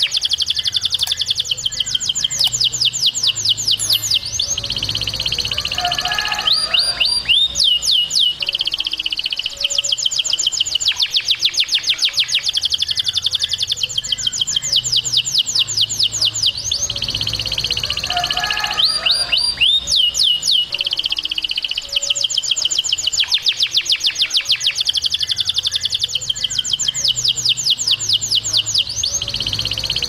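Domestic canary singing without a break: long, rapid trills of fast-repeated high notes, the trill changing every few seconds, broken by short runs of quick falling whistles.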